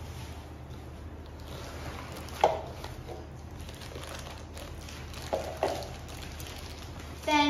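Unpacking a ring light from its padded carrying bag and plastic wrapping: a few short rustles and knocks, the sharpest about a third of the way in and two more close together past the middle.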